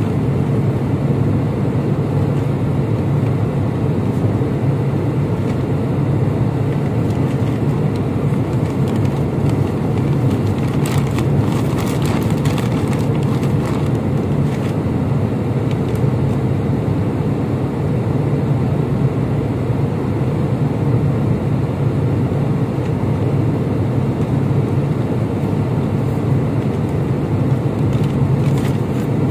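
Steady low drone of airliner cabin noise, the engines and airflow heard from a window seat. A paper bag rustles briefly around eleven to thirteen seconds in.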